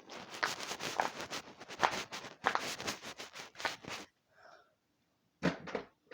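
A plastic fidget toy handled and worked in the hands: rapid crackling and rustling with many small clicks for about four seconds, then it stops, with a short knock near the end.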